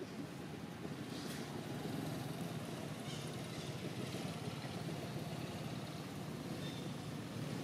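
Steady low hum of a distant engine, with a few faint soft rustles.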